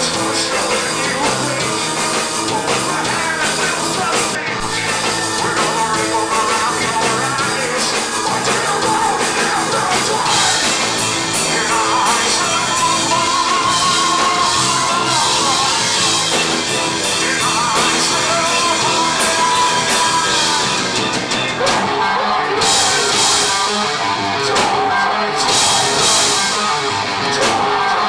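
Live metal band playing, with a vocalist singing over electric guitar, bass and a drum kit; the cymbals hit harder in the last few seconds. Recorded through a camcorder's microphone in the room.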